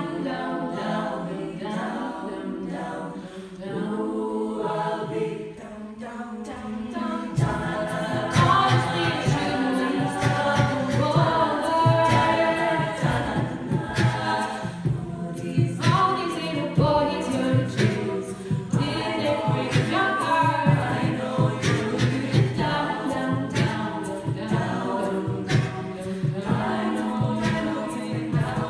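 Women's a cappella group singing: a lead voice on a microphone over the ensemble's backing harmonies. About seven seconds in, a low rhythmic vocal-percussion beat comes in and the sound grows louder and fuller.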